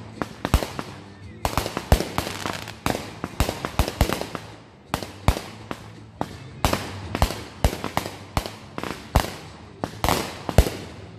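Consumer aerial fireworks going off in a rapid barrage: sharp bangs of bursting shells about two to three a second, with a brief lull about halfway through.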